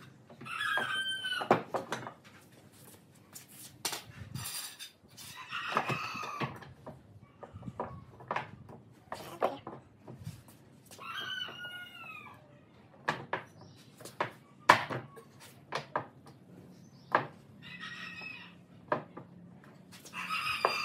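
Metal pipe clamps clinking and knocking against a wooden bed frame as they are set and tightened, in a string of sharp clicks and knocks. A chicken calls several times in the background, each call about a second long and falling in pitch.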